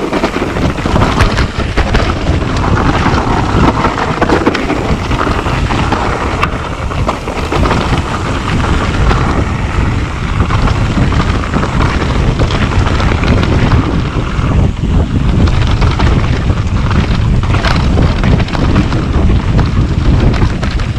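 Wind buffeting the microphone of a mountain bike on the move down a dirt singletrack, with tyres rolling over dirt and stones and frequent knocks and rattles from the bike over bumps.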